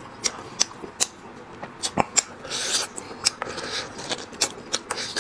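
Close-up eating sounds: wet mouth clicks and lip smacks from chewing, then a couple of hissing sucks as marrow is drawn out of a braised lamb bone held to the lips.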